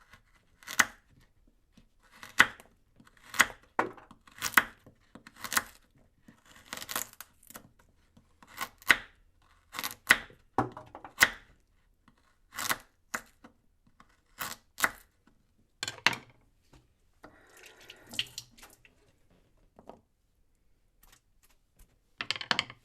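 Kitchen knife chopping through a carrot, about twenty sharp cuts at uneven intervals, roughly one a second. A longer rough, noisy stretch comes a little past the middle, then a quiet spell and a last cut near the end.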